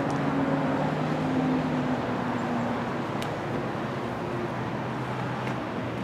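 Steady vehicle and road traffic noise with a low engine hum that sinks slightly in pitch over the first couple of seconds. A faint tick comes about halfway through.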